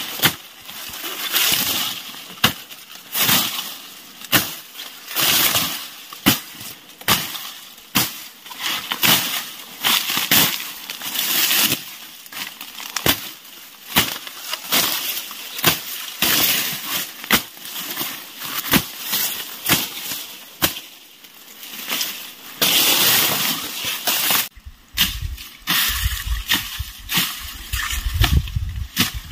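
Machete chopping through tall, dry grass stems, with irregular sharp strokes about once or twice a second amid the rustle and crackle of falling dry leaves.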